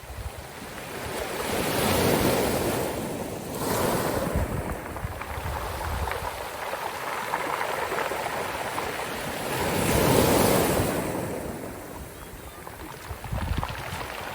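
Sea waves washing in and breaking on the shore, swelling up twice, about two seconds in and again about ten seconds in, with wind buffeting the microphone.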